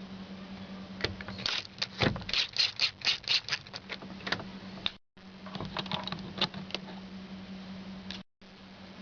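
A quick run of sharp mechanical clicks and taps, about four or five a second, from hand work on door parts. A second, sparser run of clicks follows after a brief cut, over a steady low hum.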